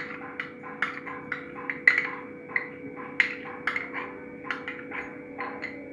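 Metal spoon scraping and clinking against the inside of a small glass bowl, about three light knocks a second, as thick chana dal (split chickpea) paste is scraped out of it.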